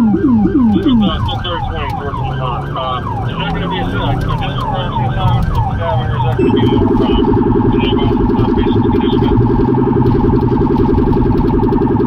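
Police cruiser's electronic siren, heard from inside the car, cycling in a fast yelp of about three sweeps a second, with the deep tone of the Rumbler low-frequency siren under it for the first second. About six seconds in, the siren switches to a much faster, steady pulsing tone.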